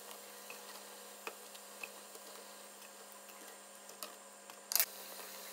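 Hot oil sizzling softly in a frying pan where pieces of fried dough (mafiş) are cooking, with a few light clicks of metal tongs as the pieces are lifted out and a short, louder crackle near the end.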